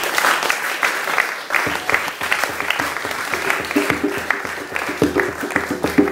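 Audience applauding: a dense, continuous patter of many hands clapping.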